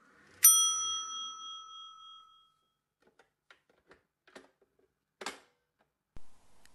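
A single bright metallic ding about half a second in, ringing on and fading over about two seconds, followed by a few faint clicks and a short knock near the end.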